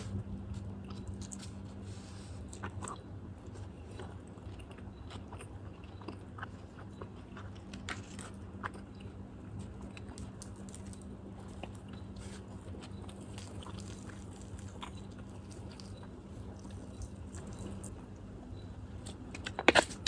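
Close-up eating sounds of someone biting and chewing fried quail with rice: scattered small crunches and mouth clicks, faint and sparse.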